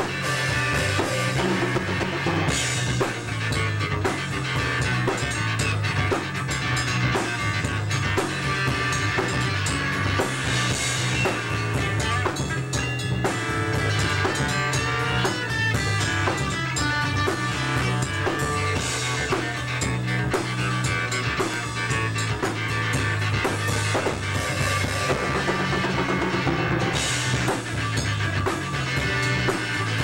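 Small band playing an instrumental rock jam: acoustic guitar and keyboard over a steady drum-kit beat, with a cymbal crash about every eight seconds.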